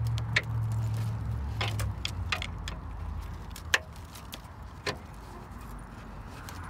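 Scattered sharp clicks and snaps, about half a dozen, the loudest a little under four seconds in: dry bramble stems crackling and snapping as a hand pushes through the thicket to work a plastic hubcap loose. A low steady rumble sits under the first two seconds.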